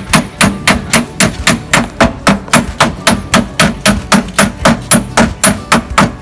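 Small dent-repair tool tapping a car's steel door panel, knocking out a dent: a steady run of sharp, even taps, about four a second.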